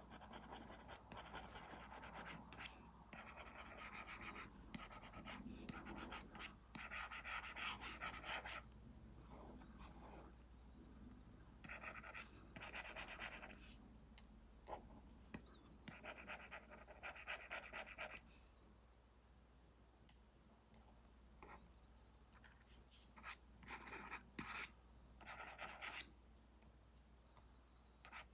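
Apple Pencil tip scratching across a paper-like screen protector on an iPad as brush strokes are drawn. It comes as faint, scratchy strokes of a second or two each, with short taps of the pencil in between and a quiet spell about two-thirds of the way through.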